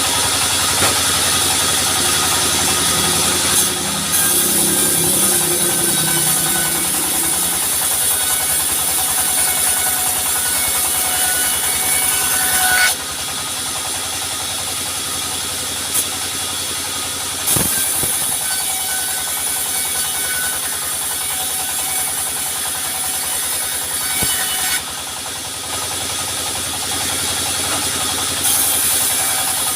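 A sawmill's engine-driven saw running steadily, cutting timber with a high hiss. The hiss drops back about 13 seconds in and returns near the end, and there are a few sharp knocks along the way.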